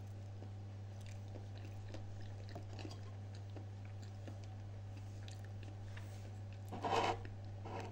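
Quiet chewing of a mouthful of banana: faint wet mouth clicks over a steady low hum, with one brief louder sound near the end.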